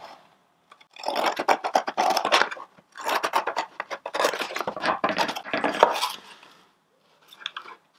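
Scissors cutting through the laminated paperboard of an empty Tetra Pak carton in several runs of snips with short gaps between them, followed by a brief rustle of the carton being handled near the end.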